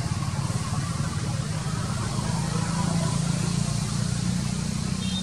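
Steady low hum with a faint hiss over it, unbroken.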